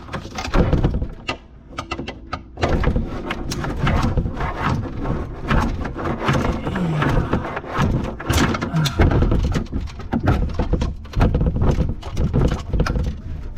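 Irregular clicks, knocks and clattering of tools and metal and plastic fittings being worked in the cramped space under a kitchen sink, as a new faucet's mounting hardware is tightened down.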